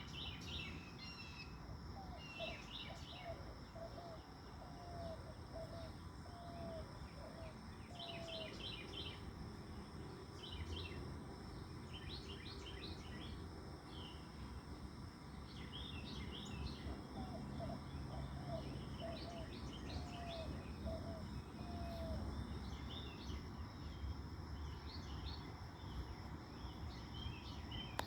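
Birds chirping in short clusters of quick high notes, with a run of lower, curved whistled notes heard twice. Under them are a steady high insect-like drone and a low background rumble.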